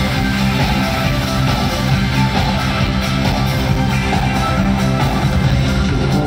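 Pop-rock band music with electric guitar over sustained bass notes, played at a steady level.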